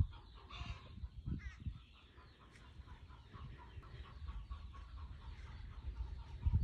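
Chickens clucking and calling, many short calls overlapping, with a few low bumps on the microphone, the loudest right at the start and near the end.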